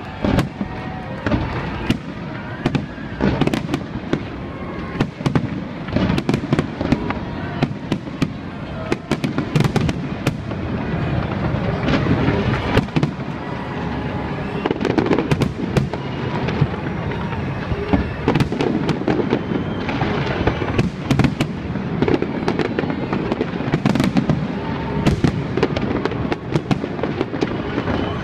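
Fireworks display: a dense run of bangs and crackles from bursting shells, several a second, over a steady low rumble.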